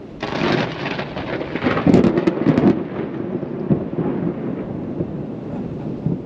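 Thunder from an approaching storm: a sudden clap just after the start, crackling loudest about two seconds in, then rolling on as a steady rumble.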